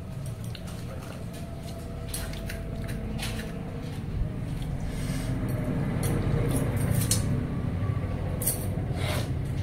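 Eating watered rice by hand from a steel bowl: fingers squishing the rice in the water, with scattered small clicks and clinks. Under it runs a low rumble that grows louder about halfway through.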